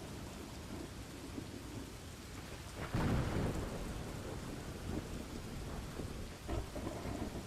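Steady rain on a thunderstorm ambience track, with a clap of thunder about three seconds in that rumbles off over the next second or two, and fainter rumbles near the end.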